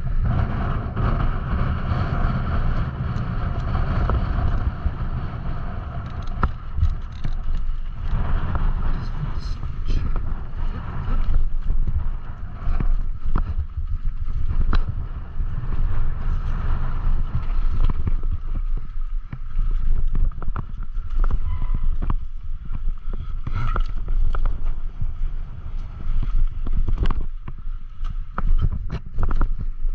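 Strong wind buffeting the microphone as a mountain bike rides down a loose dirt trail, with a constant low rumble and frequent clatters and knocks from the bike over rough ground.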